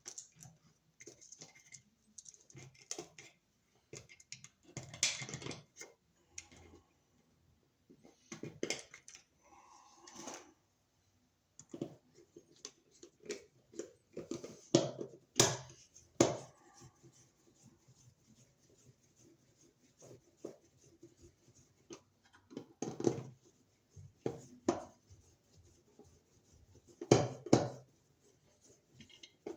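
Irregular scrapes, clicks and knocks of hand work: a wall receptacle being pushed into its electrical box and fastened with its mounting screws by screwdriver.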